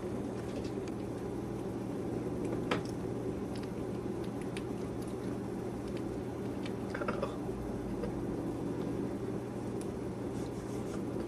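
Newborn puppies suckling at their mother, faint wet smacking and small clicks over a steady low hum; a brief squeak about seven seconds in.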